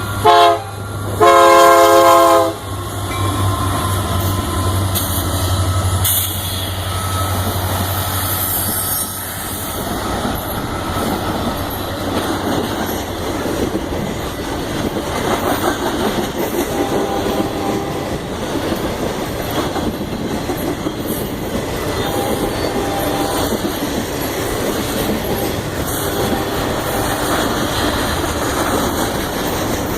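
Union Pacific locomotive sounding its horn chord, a short blast and then a longer one, as the train arrives. The locomotive engine's low hum follows, then a long string of railcars rolls by with a steady clickety-clack of wheels over the rail joints.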